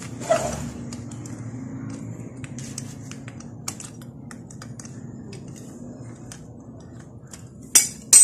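A long hand tool working fasteners on a motorcycle engine: a run of small metallic clicks and scrapes, a short clatter just after the start, and two loud metal clanks near the end. The screw being worked has a stripped head.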